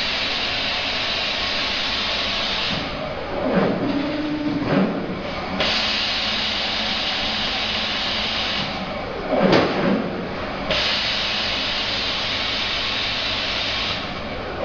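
Compressed-air paint spray gun hissing in three bursts of about three seconds each, with short gaps between, spraying paint onto plastic parts.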